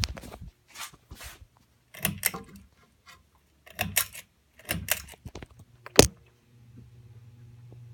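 A Hampton Bay Hawkins ceiling fan being switched on: a string of clicks and chain rattles, the loudest about six seconds in. The motor then starts with a low steady hum that slowly grows. The owner says the fan's capacitor has failed.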